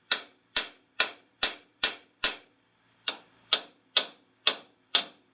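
Steel hammer striking the steering spindle over and over, sharp metal-on-metal blows about two a second with a short pause near the middle, to shock the old outer tie rod end's tapered stud loose.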